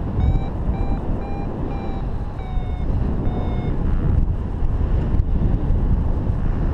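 Paragliding variometer beeping in short, evenly spaced tones, about two a second, the audio sign that the glider is climbing in lift; the beeps stop a little past halfway. Steady wind rushing over the microphone underneath.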